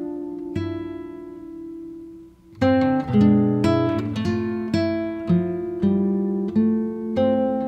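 Background music on acoustic guitar: plucked notes and chords ringing out and fading, with a short pause about two and a half seconds in before a run of new notes.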